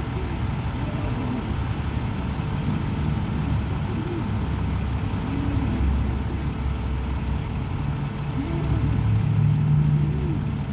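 Motor vehicle engine and road noise, a steady low rumble that swells for a couple of seconds near the end.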